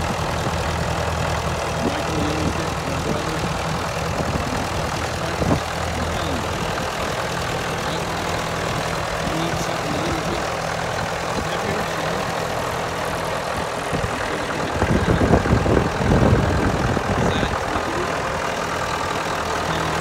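Old tractor engine running steadily at low speed as the tractor is driven around slowly. About three-quarters of the way through there is a louder, rougher low rumble lasting a couple of seconds.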